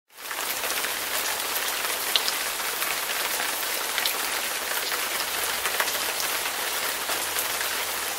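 Steady rain falling on a hard surface, with scattered sharper drop ticks. It is a recorded rain sound effect.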